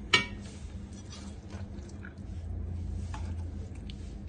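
A metal fork clinks once sharply against a ceramic serving plate while pieces of stewed meat are moved about. Faint light taps and scrapes follow over a low steady hum.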